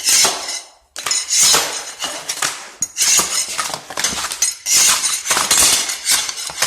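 Old floor tiles being pried up off the floor: a string of scraping strokes about a second apart, with the tiles clinking and clattering.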